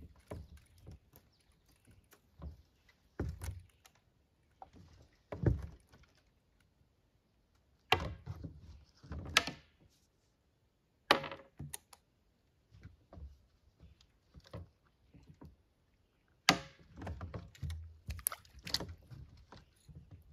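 Irregular knocks and thumps of hard objects, with sharp ones about eight, eleven and sixteen seconds in.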